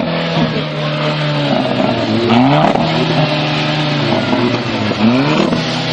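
Volkswagen Golf engine revved repeatedly: held steady at first, then its pitch falls and climbs again several times. A few sharp pops from the exhaust come in between as the revs drop.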